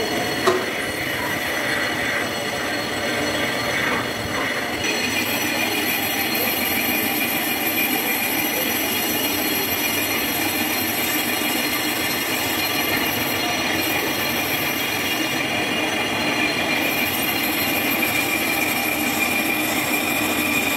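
Metal lathe turning a brake disc, the cutting tool shaving the spinning part and giving a steady whine of several high tones over a running hum. A sharp knock comes about half a second in, and a higher whine joins about five seconds in.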